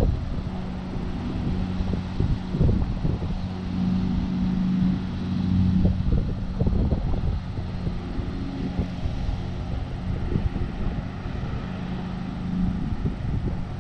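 John Deere LX176 lawn tractor engine running steadily while mowing, its hum swelling around the middle, with wind buffeting the microphone.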